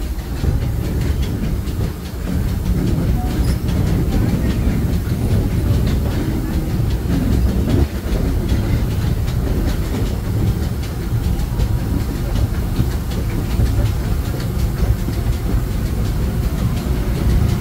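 Disneyland Railroad steam train running along its track: a steady low rumble of wheels on rails, with many small clicks and rattles over it.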